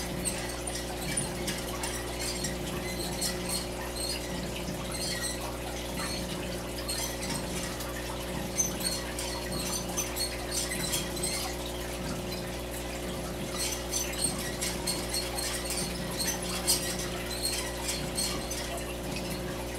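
Degus and gerbils scratching and rustling about in their tank bedding, with irregular small clicks and scattered short high chirps, over a steady low hum.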